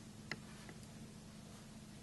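Quiet room tone with a steady faint low hum and two or three light clicks in the first second.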